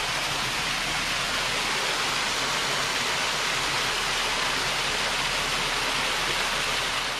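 A small waterfall running low, splashing steadily down a rock face into a shallow pool: an even, unbroken rush of falling water.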